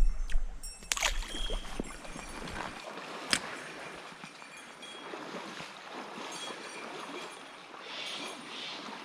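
Flowing river water, a steady rush of noise. In the first three seconds there are a few sharp knocks and clicks, the loudest about three seconds in, over a low wind rumble on the microphone.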